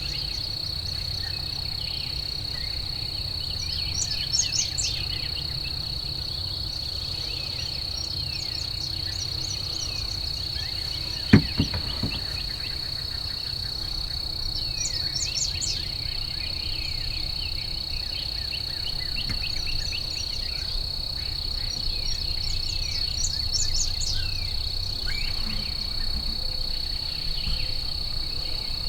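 Spring woodland ambience: a steady high-pitched insect drone with scattered songbird chirps. About eleven seconds in come two sharp knocks close together.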